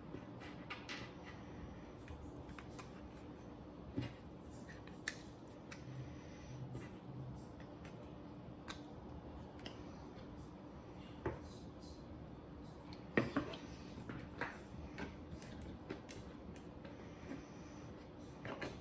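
Irregular clicks and knocks of hard 3D-printed plastic parts being handled and set down on a tabletop, with bearing-fitted plastic gears clicking into place on a plastic frame plate. The loudest knock comes about thirteen seconds in.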